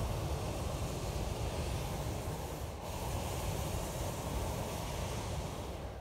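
Hot air balloon's propane burner firing one long, steady blast, a rushing roar.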